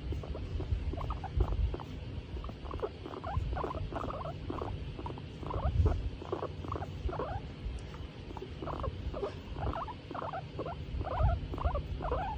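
Skinny guinea pig calling in quick runs of short squeaks, several a second with brief pauses between runs, over a low rumble. The calls are the contented sounds of a guinea pig being stroked.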